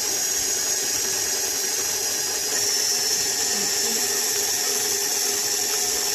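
KitchenAid Artisan stand mixer's motor running steadily as its beater creams butter and sugar in the steel bowl, getting slightly louder about two and a half seconds in.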